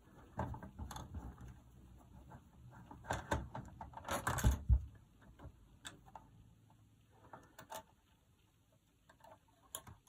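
Small clicks and scrapes of a screwdriver working at a screw and small parts at the aerial mount of a plastic radio cassette case. They are busiest about three to five seconds in, then thin out to a few light clicks.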